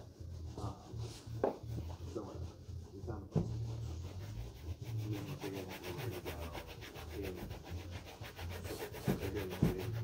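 Shoe-shine buffing: quick rhythmic rubbing on leather shoes, scattered strokes at first, then fast and steady from about three seconds in.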